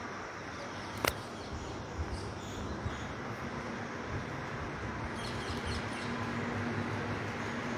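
Outdoor background hush with a few short bird chirps about five seconds in, a single sharp click about a second in, and a low steady hum that comes in partway through and grows slightly louder toward the end.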